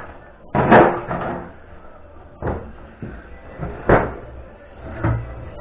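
About four separate knocks and clunks as glass canning jars and a saucepan are handled in and on a stainless steel sink.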